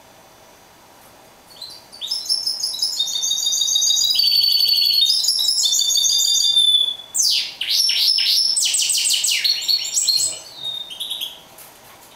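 Caged mule (hybrid finch) singing: a long song of fast, high-pitched trills and twittering phrases that starts about a second and a half in, breaks briefly midway, and trails off near the end.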